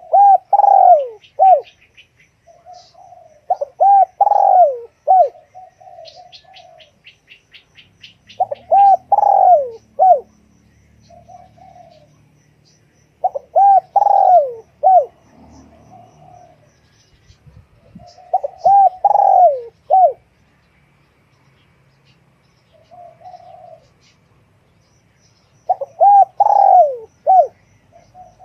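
Spotted dove cooing: a short phrase of a few rising-and-falling coos, repeated six times at intervals of about four to five seconds. Faint high chirps and a quick run of ticks come between the phrases.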